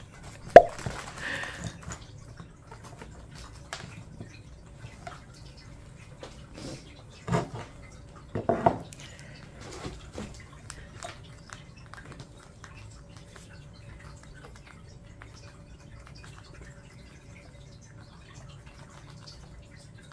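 Pet rats nibbling and crunching dried banana chips, a run of small irregular clicks and ticks, with chips and teeth knocking against the food bowl. A sharp tap comes about half a second in and a few louder knocks around seven and eight seconds in.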